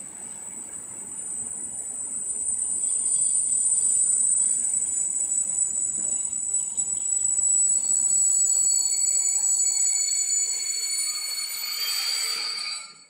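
Freight train of container flat wagons rolling past, the wheels rumbling on the rails with a steady high-pitched squeal. More squealing tones join in near the end, then the sound cuts off abruptly.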